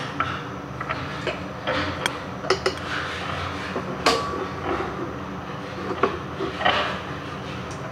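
Plastic sealant tube knocking and scraping against the rim of a ceramic undermount sink and its stone countertop while sealant is run around the sink: a few sharp clicks and knocks with short scrapes between them, over a steady low hum.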